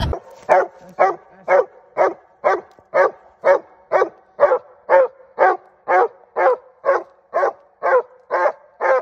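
Treeing Walker coonhound barking treed, a steady chop of short barks about two a second: the sign that the dog has a raccoon up the tree.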